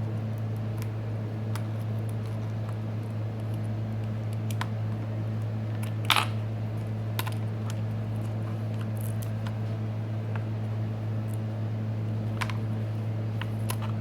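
Small clicks and taps of a repair tool popping flex-cable connectors off a smartphone motherboard, with one sharper click about six seconds in, over a steady low electrical hum.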